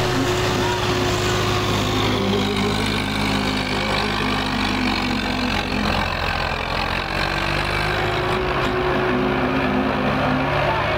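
Tractor diesel engines running hard and steadily under load as two tractors pull against each other in a tug-of-war.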